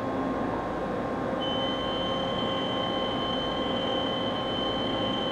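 CNC router spindle running steadily with a small thread mill, milling a quarter-20 thread into a drilled hole with a helical pass. A steady high whine comes in about a second and a half in and holds.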